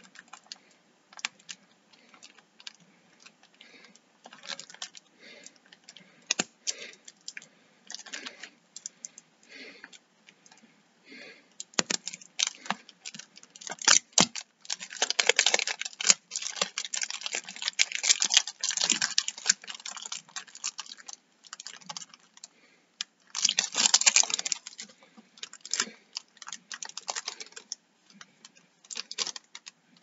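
Plastic shrink-wrap being picked at and pulled off a CD case by hand: scattered fingernail clicks and taps on the case at first, then long bursts of crinkling and crackling plastic from about the middle, with another burst later on.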